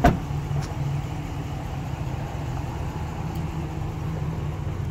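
A pickup truck door slams shut, then a steady low rumble of an idling engine.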